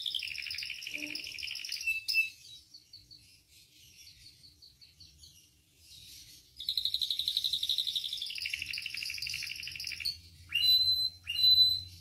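Canary singing: a rapid trill, then softer twittering, a longer trill about halfway through, and two loud, short downward-sweeping notes near the end.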